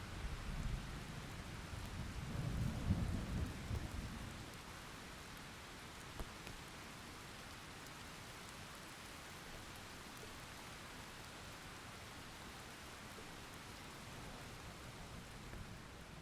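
Steady rain with a roll of thunder rumbling through the first few seconds, strongest about three seconds in, then fading to rain alone.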